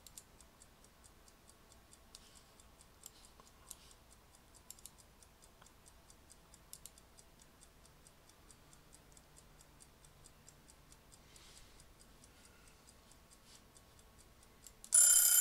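Faint, steady ticking through a quiet stretch. Near the end, a loud electronic alert tone made of several steady pitches sounds for about a second.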